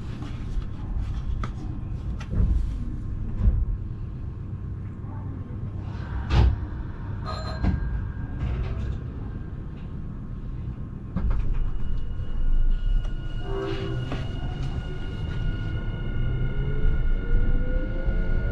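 Nankai 12000 series electric train pulling away from a station stop: a few sharp knocks over a low rumble, then about three-quarters of the way through its traction motors start a whine that climbs steadily in pitch as the train accelerates.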